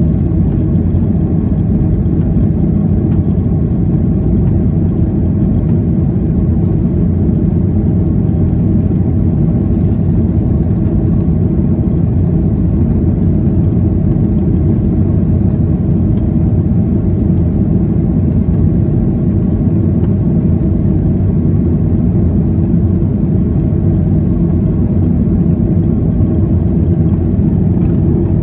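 Boeing 737-800's CFM56-7B turbofan engines and airflow heard inside the passenger cabin as a loud, steady, deep drone that does not change.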